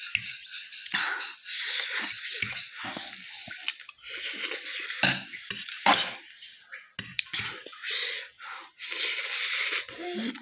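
Eating noodles: cutlery clinking and scraping against a dish, with wet, irregular noises from the food.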